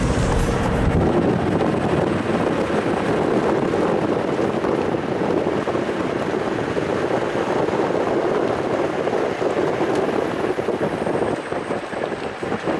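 Ute driving along a bush track, a steady rush of wind and road noise past the open side with the engine running underneath; the noise turns more uneven near the end.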